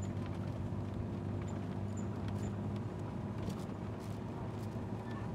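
A vehicle's engine running steadily with tyre and road noise, heard from on board as it drives up a winding mountain road.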